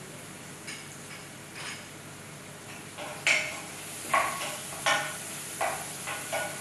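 A spoon stirring in a saucepan on the stove, quiet at first, then from about three seconds in a run of sharp clinks as the spoon knocks against the pot.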